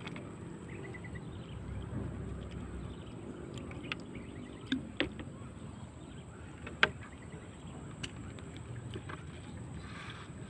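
Fishing gear handled in a wooden canoe: a few sharp knocks and clicks against the boat, the loudest about seven seconds in, over a low steady background.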